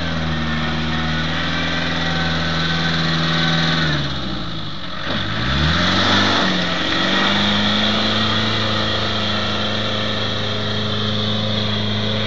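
Land Rover engine revving hard under load as the stuck vehicle tries to drive out of mud: held high, easing off about four seconds in, then revved up again and held steady.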